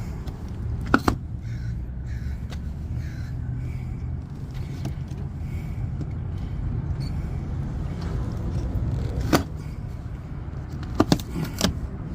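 Staples being pried out of a cardboard shipping box: a few sharp clicks, one about a second in, another later on, and a quick cluster near the end, over a steady low rumble.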